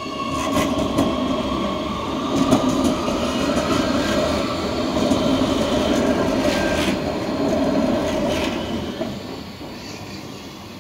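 Oslo Metro MX3000 train passing over a level crossing. The wheels rumble on the rails with a steady hum and several sharp clicks over the track, then fade away about nine seconds in.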